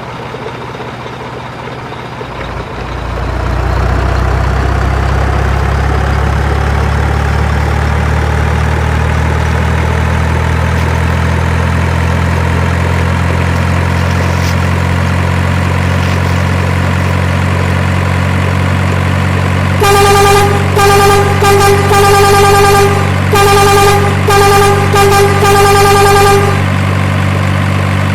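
Truck engine sound coming up about two and a half seconds in and running steadily. From about twenty seconds in, a horn honks about eight times in quick succession at one pitch for some six seconds, before the engine carries on alone.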